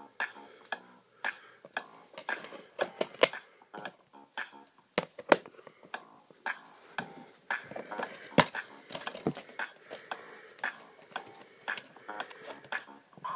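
Plastic DVD case and discs being handled: irregular sharp clicks and taps as the clear plastic case and disc tray are moved and touched.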